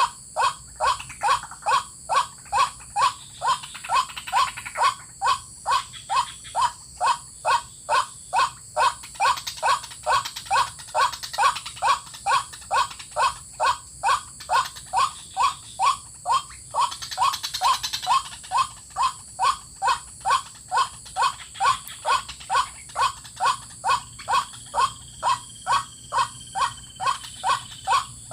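White-breasted waterhen calling: a monotonous, even run of short, rising croaking notes, about two a second, with a few brief breaks.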